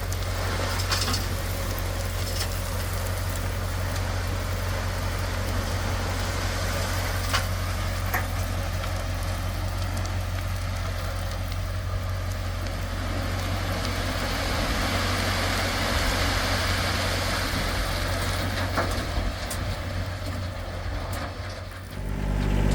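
Small farm tractor's engine running steadily with a low hum, under an even hiss. The level dips briefly near the end.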